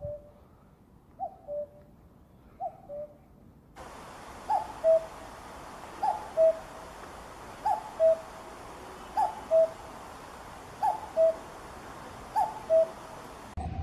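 Common cuckoo calling its two-note "cuck-oo", a higher note dropping to a lower one, repeated about every second and a half, around nine times. About four seconds in the recording changes to one with more background hiss, and the calls there are louder.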